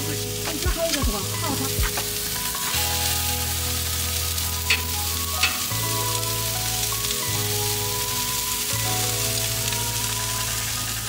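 Meat and vegetables sizzling on a charcoal grill, a steady hiss, with a short click of tongs about halfway through. Soft background music with slowly changing low notes plays underneath.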